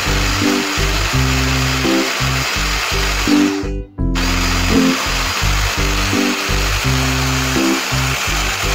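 Electric hand blender with a chopper bowl running steadily with a motor whine as it grinds mint into chutney, over background music with a changing bass line. All sound drops out briefly about four seconds in.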